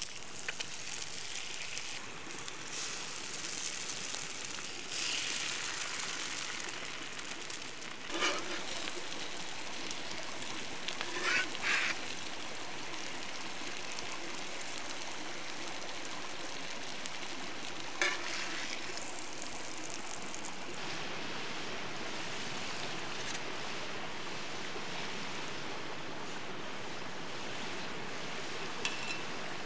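Eggs sizzling in hot fat on a steel griddle plate over a wood fire, a steady crackling hiss. A few short, sharper sounds stand out over it about eight, twelve and eighteen seconds in.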